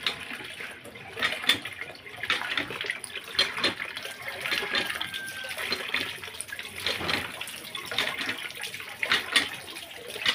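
Water splashing and dripping in a metal basin as feathers are plucked from a scalded chicken and the bird is dipped and shaken over it, in irregular wet splashes.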